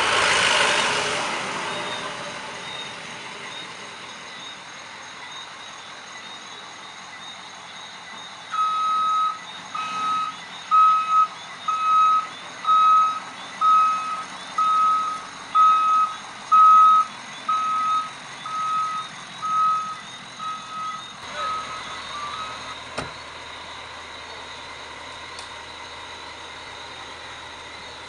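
Ambulance reversing alarm sounding: a regular series of single high-pitched beeps, a little more than one a second, lasting about thirteen seconds over a faint steady hiss. A burst of noise fades away over the first two seconds.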